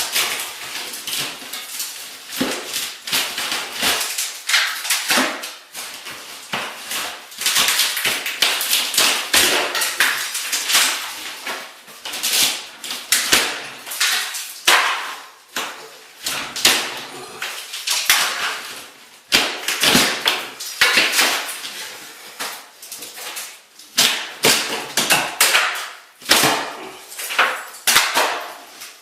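A bathroom ceiling being torn down by hand: a long run of irregular knocks, cracks and crashes as pieces break away, with cellulose insulation and debris falling.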